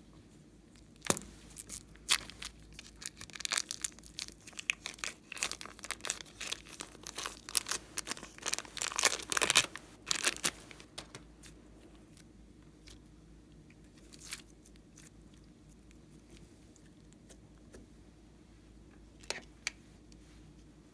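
Hands handling slime-making materials: dense crinkling and crunching with sharp clicks for the first half, then only a few scattered clicks.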